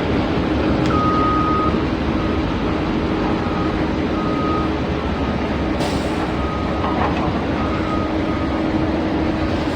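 Steady machine noise with a constant low hum, and short high-pitched beeps that come and go at uneven intervals, like a vehicle's reversing beeper.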